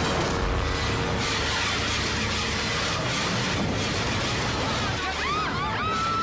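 Light aircraft diving low over a street, a steady rush of engine and wind noise, with several people screaming in the last second or so.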